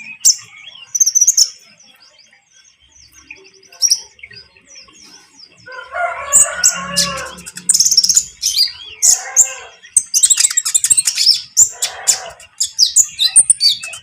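Olive-backed sunbirds (kolibri ninja) singing rapid, high twittering chirps and trills in bursts, with a quieter stretch early on, fast continuous 'trotol' song meant to draw a young bird into singing. Lower, coarser calls sound several times in the second half.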